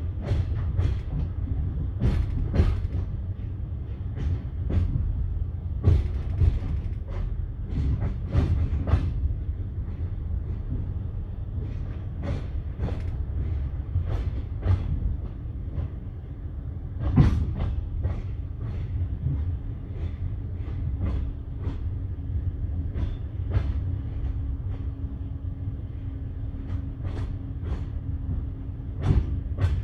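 Passenger train wheels knocking irregularly over rail joints and points at slow speed, over a steady low rumble of the carriage. The loudest knocks come about halfway through and near the end, and a steady low hum joins in a little past halfway.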